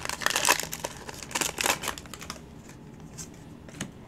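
Foil Pokémon booster-pack wrapper being torn open and crinkled in dense crackling bursts for about two seconds, then quieter with a couple of light clicks as the cards are handled.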